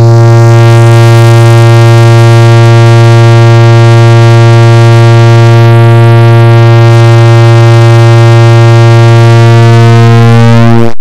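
Clock-tick sound sped up so far that the ticks merge into one loud, steady low buzz with many overtones; the overtones waver slightly near the end.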